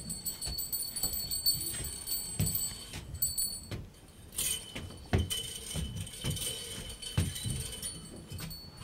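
Bedsheet stage curtain being pulled across with a long pole: cloth rustling and scraping, with scattered knocks and three dull thumps.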